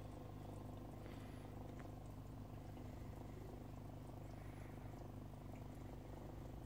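Steady low hum of an aquarium pump, with faint short high chirps a few times over it.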